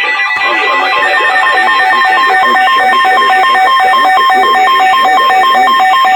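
Emergency alert attention signal from a weather radio broadcast: a loud two-tone alarm that warbles rapidly back and forth between a higher and a lower tone, starting about half a second in. It is the signal that comes before a severe thunderstorm warning is read out.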